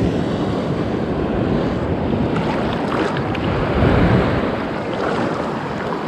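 Small waves washing in shallow surf, with wind rushing on the microphone; the wash swells briefly about four seconds in.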